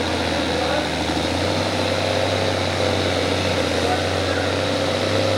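Farm stock pulling tractor's diesel engine running hard and steady under full load as it drags the weight sled.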